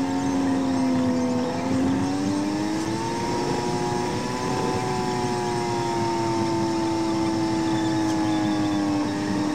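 Car engine droning, heard from inside the cabin; its pitch rises over a few seconds about two seconds in, then slowly eases back down.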